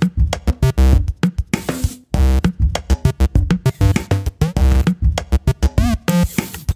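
Electronic background music: a heavy drum-machine beat under chopped, stuttering synth notes, with a short break about two seconds in and a few quick warbling pitch sweeps later on.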